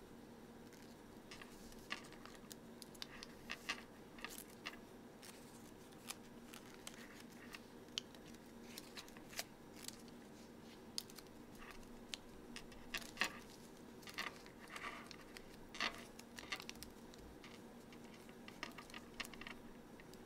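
Origami paper being folded and creased by hand: faint, irregular crinkles, clicks and scrapes of paper against fingers and the tabletop, over a steady low hum.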